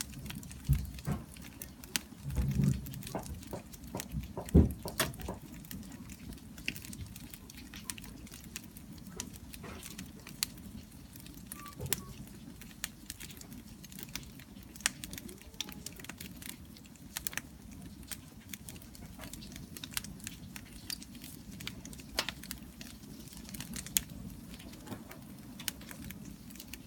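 Wood bonfire crackling, with irregular sharp pops and snaps over a steady low rumble. A few louder dull thumps come in the first five seconds.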